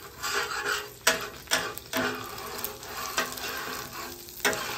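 Metal spatula scraping across a steel flat-top griddle as it turns tater tots, with a few sharp clicks where the blade strikes the plate and a light sizzle underneath.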